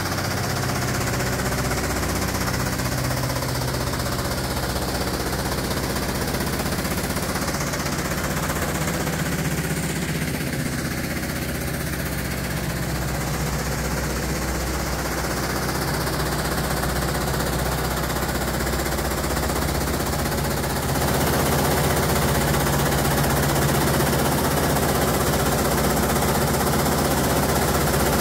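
Keestrack Novum mobile screener running, its Deutz diesel engine going at a constant speed under a fast, steady mechanical rattle. The sound gets louder about three quarters of the way through.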